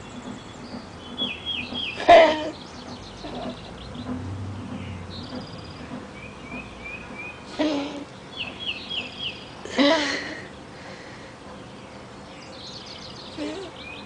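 Elderly pug coughing and wheezing in short fits: about two seconds in, then twice more past the middle, with a smaller one near the end. Small birds chirp repeatedly in the background between the fits.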